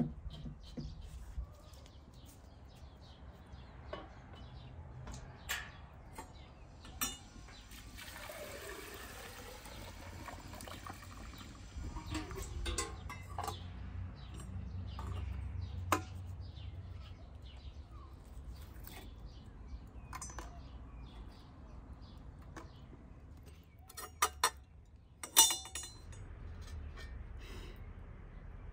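Water pouring into a vessel for about three seconds, starting about eight seconds in, among scattered knocks and clinks of handling. Near the end comes a quick run of sharp clinks.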